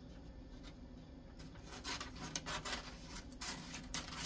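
Scissors cutting wrapping paper: a quick, uneven run of short snips that begins about a second and a half in.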